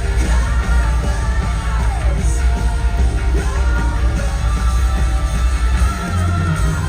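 Live metal band performance with a woman singing long, sustained lines that glide in pitch over heavy drums and bass guitar.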